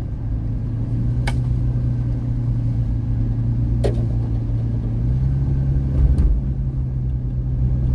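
Car engine and road noise heard inside the cabin while driving a rough dirt trail, a steady low hum that steps up in pitch about five seconds in. Three sharp knocks cut through it, about one, four and six seconds in.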